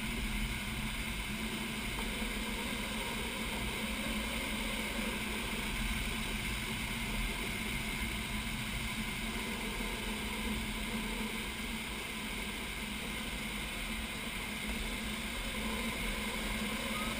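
Steady rush of air past a sailplane's cockpit canopy in gliding flight, even throughout, with a faint steady hum underneath.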